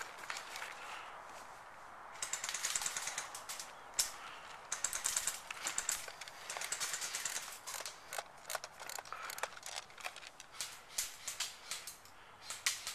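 Airsoft guns firing: several bursts of rapid clicking shots, each about a second long, with scattered single shots in between.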